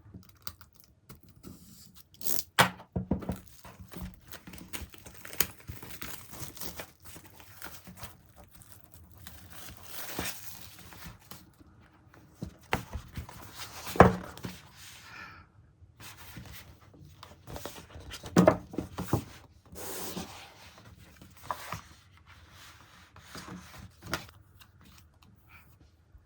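Packaging being handled and torn open: irregular tearing and crinkling, with scattered clicks and a few sharp knocks, the loudest about fourteen seconds in.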